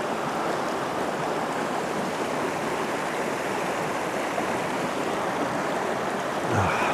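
Shallow mountain river rushing and splashing over rocks: a steady, even rush of water.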